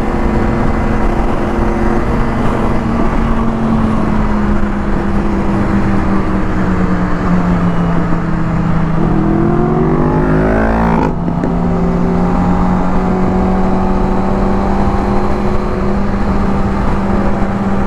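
Motorcycle engines running steadily at highway cruising speed over a constant rush of road and wind noise. From about eight and a half seconds in, an engine revs up in a rising whine, then cuts off sharply at a gear change around eleven seconds before the steady note resumes.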